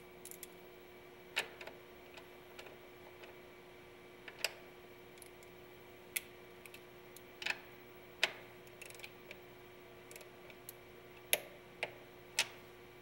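Hand tools clicking on metal, a dozen or so sharp, irregularly spaced clicks and taps from a socket wrench and a torque wrench tightening a fastener to 106 lb-in in an engine bay, with a faint steady hum beneath.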